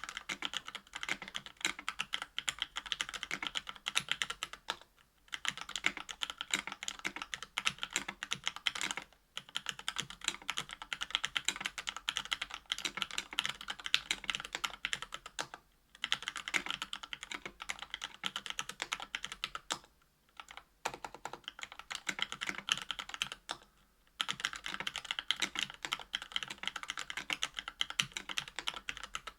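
Fast typing on a 65% aluminium mechanical keyboard with Matrix Lab FFFF (4F) 62g linear switches, aluminium plate, lubed stabilizers and GMK keycaps: a dense clatter of keystrokes in bursts of several seconds with brief pauses between them.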